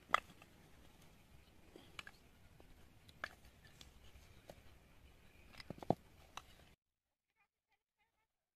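A few scattered sharp clicks and knocks over a faint steady hiss, the loudest just after the start and just before 6 seconds in. The sound then cuts out abruptly to dead silence about two-thirds of the way through.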